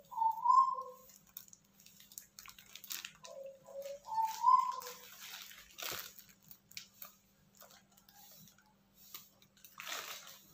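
Brown paper and plastic wrapping crackling and rustling as bundles of bougainville cuttings are pulled apart and handled. Two short pitched calls, each a low note followed by a higher rising note, sound at the start and again about four seconds in, louder than the rustling.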